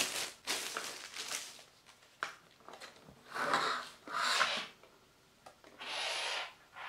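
Packaging being handled as items are unpacked from a box: about four short bursts of rubbing and rustling, with a sharp click about two seconds in.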